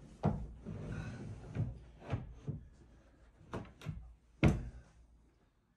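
Pull-out sofa bed mechanism being drawn out and unfolded: a run of knocks and clunks from the metal frame and platform. The loudest clunk comes about four and a half seconds in.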